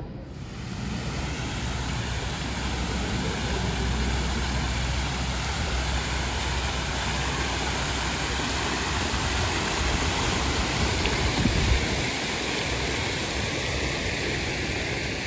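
Large tiered fountain with water splashing and cascading steadily down its stepped basin, with a low rumble underneath.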